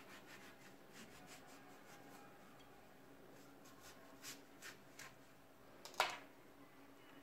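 Small kitchen knife cutting and scraping through the seed cavity of a pumpkin on a plastic cutting board: faint scraping strokes, a few light clicks, and one sharper click about six seconds in.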